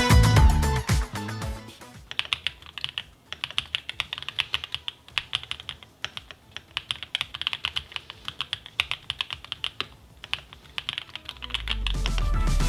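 Typing on a Qwertykeys QK75N custom mechanical keyboard with an FR4 plate, Vertex V1 linear switches and GMK keycaps: runs of crisp, clacky keystrokes with brief pauses between them. Electronic dance music fades out in the first two seconds and swells back in near the end.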